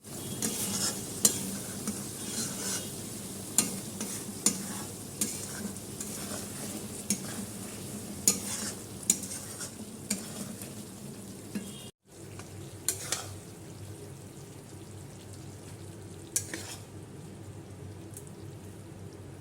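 Dum aloo frying and sizzling in a pan while it is stirred, the spoon scraping and knocking against the pan at irregular moments. The sound cuts out briefly about twelve seconds in, then the sizzling carries on with fewer knocks.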